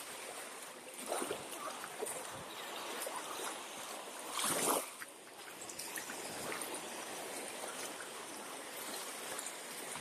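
Sea waves washing onto a sandy beach: a steady rush of surf with a louder wave breaking about four and a half seconds in.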